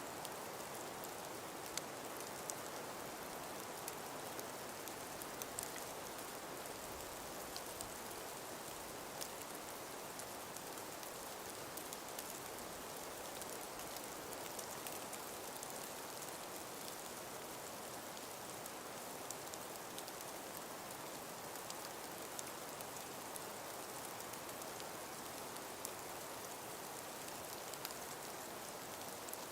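Calm winter breeze through a frost- and ice-covered forest: a steady, even hiss with scattered small ticks and patters throughout.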